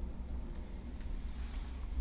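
Small wooden stick making a few faint, light taps and soft handling sounds over a low steady rumble.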